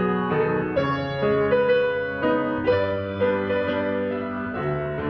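Steinway & Sons S-155 grand piano, a Hamburg-built instrument that has been fully restored, played in a slow piece. Bass notes are held under chords that change about once a second.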